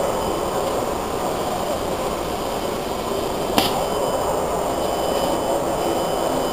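Vacuum auto loader running steadily, its suction motor drawing plastic granules up through the hoses, with a single sharp click about three and a half seconds in.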